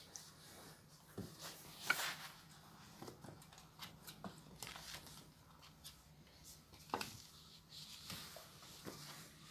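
A puppy scuffling and scrabbling on a wooden parquet floor as it plays at a person's socked feet: soft scratching and rustling, with a few sharper knocks, the loudest about two seconds in and about seven seconds in.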